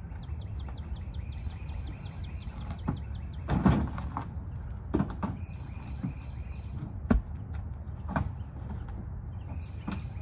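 Cherry log rounds being shifted and dropped out of a pickup bed: a few heavy knocks and thumps, the loudest about three and a half seconds in, over a steady low rumble. A bird trills and chirps in the background.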